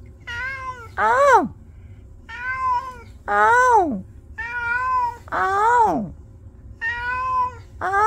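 Ginger tabby cat meowing over and over: four pairs of meows about two seconds apart, each pair a shorter, fairly even call followed by a louder one that drops in pitch.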